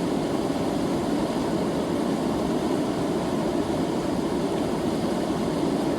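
River water rushing steadily, a continuous even low rush with no break or change.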